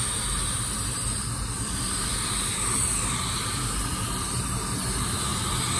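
Iwata air spray gun hissing steadily as it sprays waterborne paint, its regulator set just under 15 PSI.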